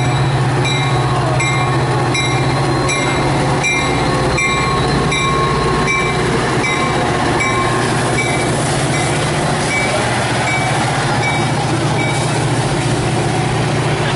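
Metra F40PHM diesel locomotive and bilevel commuter cars passing close by: a steady low engine drone under continuous wheel and rail noise. A bell rings about one and a half times a second over it and fades out near the end.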